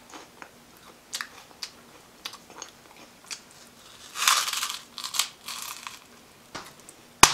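Mouth crunching and chewing a cheese-flavoured Umaibo puff stick: scattered small crackles, a longer crunch about four seconds in as a piece is bitten off, then more crackles. A sharp click near the end.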